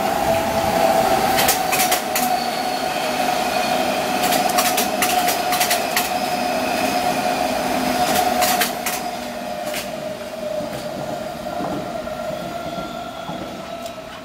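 London Underground S Stock train passing along the track, with a steady whine that sinks slightly in pitch and rapid clicks of the wheels over rail joints. It is loudest for the first eight or nine seconds, then fades as the train draws away.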